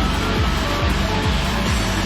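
Electronic background music with a steady kick drum beat about twice a second and short synth notes.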